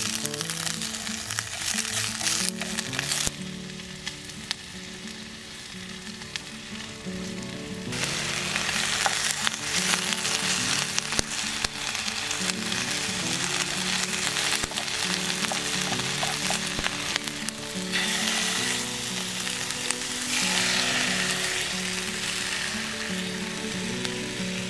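Cabbage and carrot frying in a pan on a small camp stove: a steady sizzle, softer for a few seconds near the start, with chopsticks stirring and clicking against the pan.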